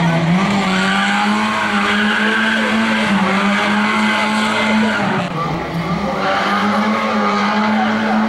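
A small hatchback rally car, a Fiat 127, held at high revs as it threads through a cone gymkhana. The engine note stays high with brief dips as the driver lifts between turns, and the tyres squeal through the tight turns.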